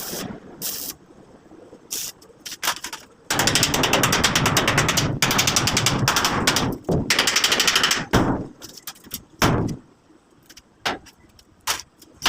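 A power tool hammering in rapid bursts of impacts, each several seconds long, broken by pauses and a few single knocks.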